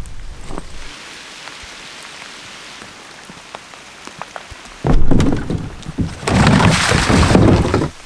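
Steady rain falling, with scattered drop ticks. About five seconds in, a much louder close rustling noise takes over in two spells.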